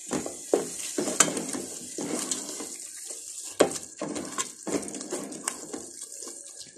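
Wooden spoon stirring and scraping through a frying onion-and-herb masala in a pot, over a steady sizzling hiss, with a few sharper knocks of the spoon against the pot.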